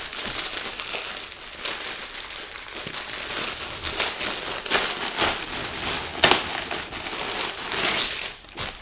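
Plastic packaging, a poly mailer and the clear plastic bag around a jacket, crinkling and rustling without a break as the jacket is unwrapped, with several sharper crackles along the way.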